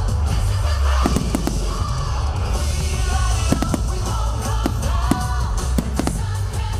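Fireworks bursting and crackling in quick succession through loud pop dance music with a heavy bass beat and a singer.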